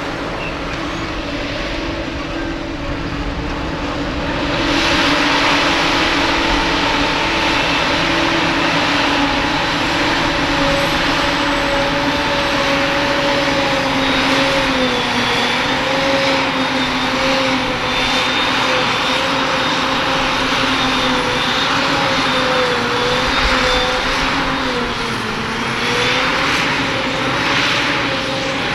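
Self-propelled forage harvester working in grass: heavy engine noise with a steady high whine from the chopper and blower, pitch wavering slightly under load. It gets louder about four to five seconds in.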